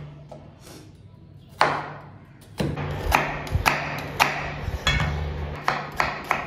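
Kitchen knife slicing red onion on a bamboo cutting board: one sharp knock, then from about two and a half seconds in a run of knocks about two a second as the blade goes through the onion and strikes the board.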